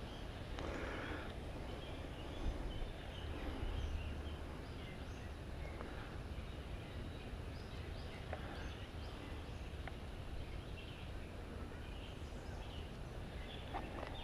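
Quiet outdoor ambience: a low wind rumble on the microphone, swelling a little a few seconds in, with scattered faint bird chirps and a few light clicks.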